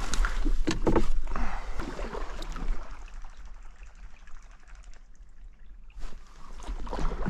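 Kayak being paddled through a cattail marsh: splashing paddle strokes with several sharp knocks of paddle on hull, busiest in the first few seconds, easing off in the middle, then picking up again near the end.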